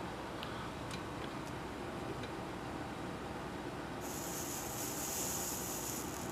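A few faint ticks over steady background hum, then about four seconds in a high hiss starts suddenly and lasts about two seconds. The hiss fits a soldering iron sizzling on the solder joint as the separated white wire of a Kush Box vape battery is resoldered.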